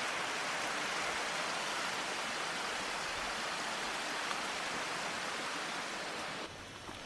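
Small mountain stream spilling down a rocky bank in a narrow cascade: a steady rush of water that cuts off suddenly near the end.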